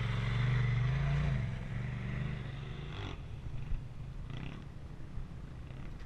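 Turbocharged side-by-side UTV engine running at low revs as it crawls over rock, revving up briefly about a second in, then easing off and fading to a quieter rumble with a couple of faint knocks.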